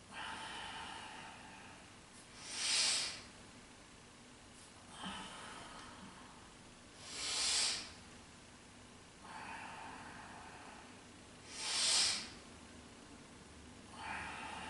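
A person breathing deeply through the nose, paced with leg lifts. Each cycle is a softer drawn breath of about two seconds followed by a short, louder rush of air, three cycles about four and a half seconds apart.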